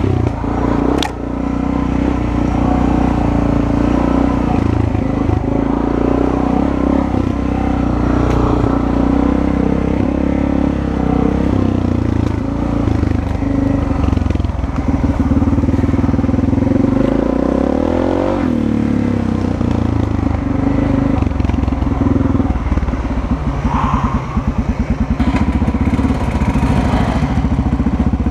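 Dirt bike engine running steadily at low trail speed, picked up by a helmet-mounted camera. The revs drop and then rise again about two-thirds of the way through, with a few knocks from the bike over rough ground.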